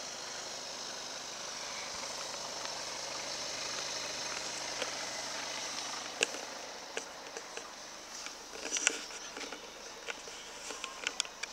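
Steady outdoor background hiss, then from about halfway a run of sharp clicks and knocks, the loudest about three quarters in, as a car door is opened and handled.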